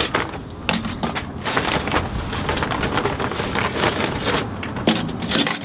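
Oak lump charcoal pieces clinking and rustling as hands dig into the pile and set mesquite wood chunks among them: a dense, continuous run of small dry clatters.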